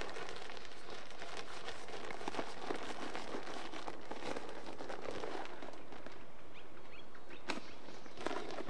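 Footsteps crunching on dry ground, a continuous crackle of small clicks with a few sharper snaps near the end.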